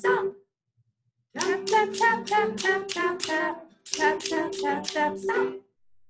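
A pair of wooden sticks tapped together in a steady beat, about three taps a second, each tap clicking with a short ringing tail. The taps come in two runs with a brief pause between them.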